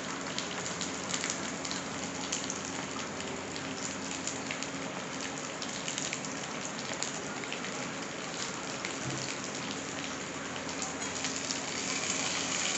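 Onion-and-spice masala sizzling steadily in hot oil in a steel kadai, with a fine crackle of spitting oil. Near the end a metal spatula starts stirring through it and the sizzle grows louder.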